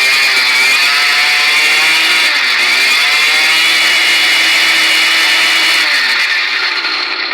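Murray M2510 string trimmer's two-stroke engine revving at high speed. It dips and climbs back twice, holds at full revs, then drops back toward idle near the end. It is running cleanly and responding quickly on a freshly fitted replacement carburetor.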